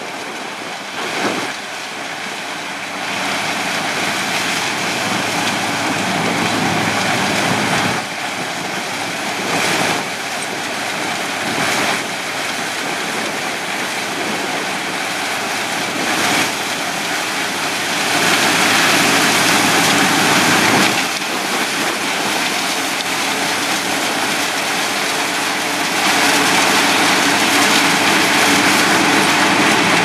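Sugarcane harvester and the haul-out tractor beside it running while cutting and loading cane: a steady, loud din of engines and machinery that swells louder a few times.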